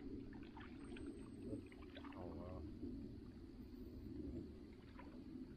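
Faint sounds of canoes on a calm river: small drips and light splashes of water from paddles over a steady low hush.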